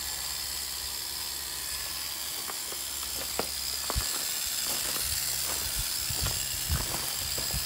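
Small handheld rotary polisher (mini detailing polisher) running steadily with a high-pitched whine and hiss, its pad working on a car's gloss-black bumper trim. Scattered light knocks and clicks come in the second half.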